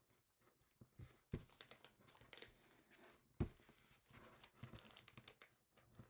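Faint rustling and crinkling of a sheet of origami paper being folded and creased by hand, with a couple of soft knocks.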